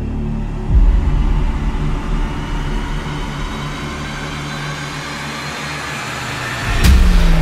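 Motorcycle engine idling with a low, steady rumble. There is a deep thump about a second in, and the sound swells louder near the end.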